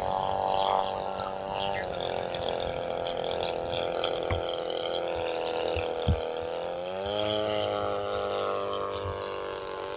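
Engine of a radio-controlled high-wing scale plane in flight, a steady engine note whose pitch shifts up and down a few times. A brief thump comes about six seconds in.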